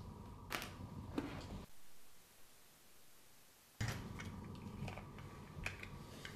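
A few small clicks and taps from a rangefinder camera being handled on a table, over a steady hum. The hum drops away for about two seconds in the middle and comes back suddenly.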